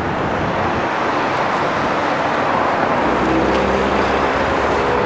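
City street traffic: a steady rush of passing cars. About three seconds in, a vehicle's engine hum joins it.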